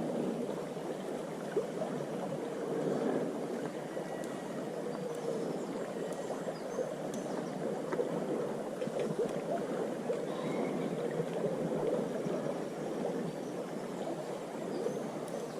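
Small river flowing, a steady babble and gurgle of running water.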